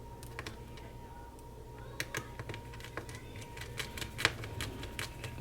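Irregular light clicks and taps of small screws and a precision screwdriver against a MacBook Pro's case during reassembly, sparse at first and more frequent from about two seconds in.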